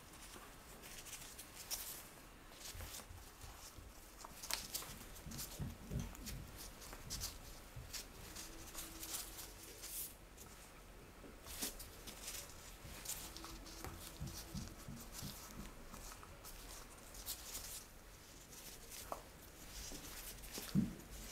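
Soft rustles, light taps and crinkles of gloved hands draping strips of pie dough over a plastic-wrapped aluminium foil loaf pan, with a few dull thumps.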